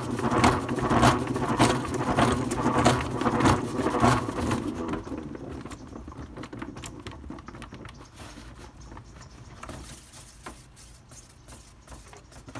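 Hand-cranked restaurant-grade salad spinner spinning washed kale dry: a rattling, clicking whir with about two turns of the crank a second. About four and a half seconds in the cranking stops and the basket coasts, its clicking whir fading away.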